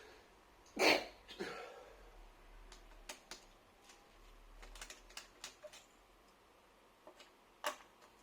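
Scattered small clicks and taps of a Torx screwdriver working the hard drive's mounting screws, with a sharper knock about a second in and another near the end.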